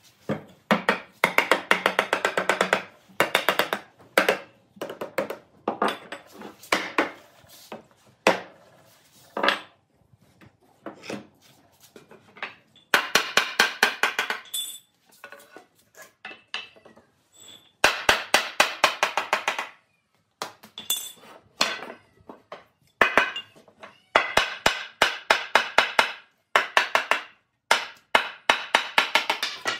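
Hammer striking the joints of a wooden frame in quick runs of blows, about six a second, with pauses between runs.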